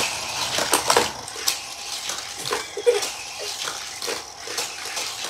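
Plastic Hot Wheels loop track clicking and clattering as a toy car is handled and sent rolling along it, a run of irregular small knocks.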